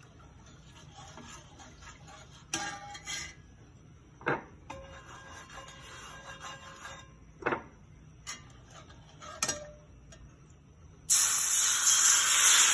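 A few short knocks and clinks, then about eleven seconds in, a loud sudden sizzle as thin neer dosa rice batter is poured onto a hot oiled cast iron griddle.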